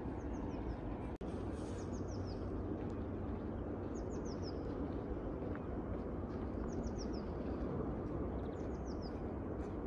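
A small bird calling over steady low outdoor rumble: each call a quick run of four or five high, falling chirps, repeated about every three seconds. The sound cuts out for an instant about a second in.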